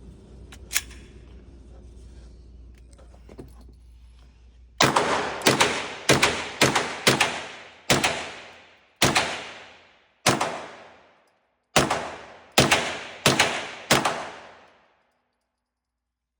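Smith & Wesson .22 handgun firing about a dozen shots, unevenly spaced, from a magazine mixing CCI Stingers with a second .22 load; each crack rings out with a long echo of the range. The two loads differ in loudness.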